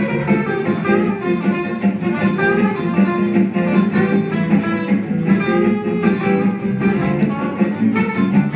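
Gypsy jazz quartet playing live: acoustic guitars strumming a steady beat and picking the melody, with violin and upright double bass.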